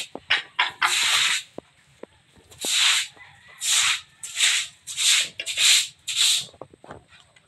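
A brush scrubbing a wet concrete floor in quick back-and-forth scraping strokes, about eight of them, with a pause of about a second after the first two.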